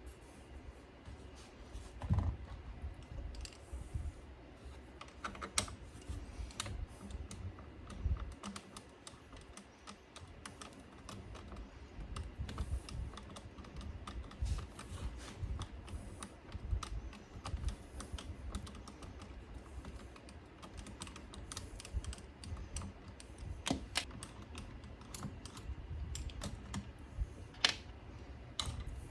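Irregular light clicks, taps and small knocks of hands and small tools working on an Onkyo CR-555 CD receiver during its pickup-replacement repair.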